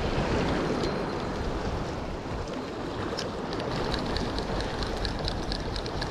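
Wind buffeting the microphone over sea washing against the rocks. From about three and a half seconds in, a spinning reel is wound in, ticking rapidly and evenly.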